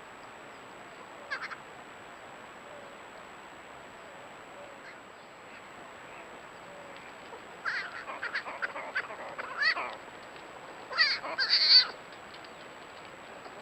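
Baby javelinas (collared peccaries) calling in short pitched squeaks and honks: one brief call about a second in, then a string of calls from about the middle, with the loudest calls near the end.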